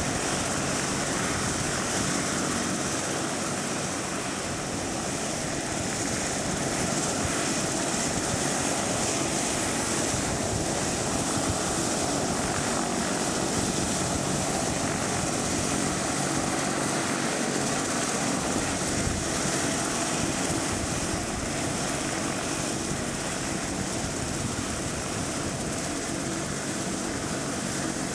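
Rescue helicopter running on the ground with its main and tail rotors turning: a steady turbine and rotor noise with a strong high hiss.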